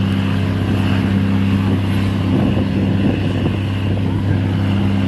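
Boat engine running at a steady pitch, an even low hum, with a brief rush of rougher noise over it about halfway through.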